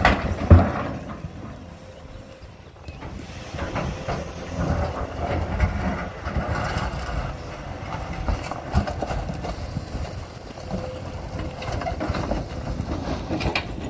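Volvo EC480 L tracked excavator working: its diesel engine and hydraulics run under load, rising and falling as it swings and digs into a pile of broken asphalt. There is a loud clunk about half a second in and a few smaller knocks from the bucket and the rubble.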